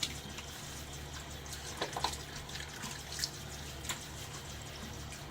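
Bathroom tap running into a sink, with a few splashes of water as the face is rinsed after the first pass of a wet shave.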